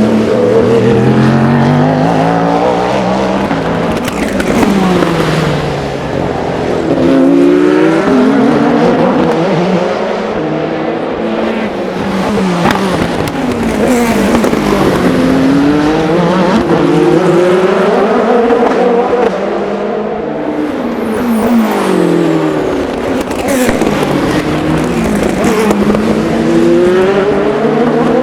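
Endurance race cars passing one after another through a corner, their engines dropping in pitch through downshifts as they brake, then rising through upshifts as they accelerate away. Several cars overlap, with a steady run of engine sound and no pause.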